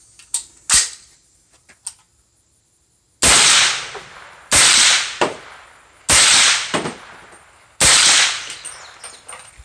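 Four suppressed shots from a 300 Blackout short-barreled rifle with a home-built 9-inch titanium Form 1 suppressor, evenly spaced about a second and a half apart, alternating supersonic and subsonic rounds. Each report dies away over about a second, and a fainter crack follows most of them. A few sharp clicks of handling come first.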